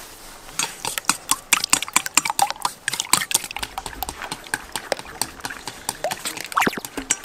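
Chopsticks beating eggs and milk in a stainless steel bowl: a rapid, steady clicking of the chopsticks against the metal, several strikes a second, with a liquid slosh, starting about half a second in.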